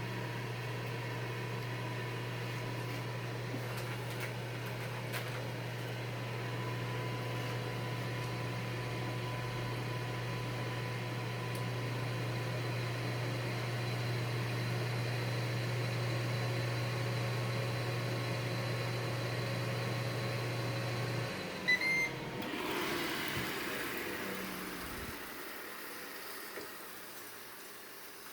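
Ninja Foodi Grill running with its fan humming steadily; about 21 seconds in the fan cuts off and the grill gives two short beeps, the signal that the cooking time is up, followed by a brief hiss.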